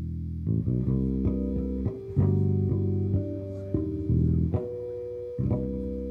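Solo electric bass, a sunburst Jazz-style bass played fingerstyle through an amplifier: a slow line of plucked notes and chords, each left to ring, with a fresh attack every half second or so.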